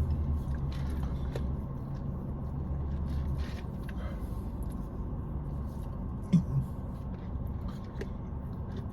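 Quiet eating sounds: chewing, with small clicks and scrapes of a utensil in a KFC Famous Bowl, and one sharper knock about six seconds in. A low steady hum underneath stops about a third of the way through.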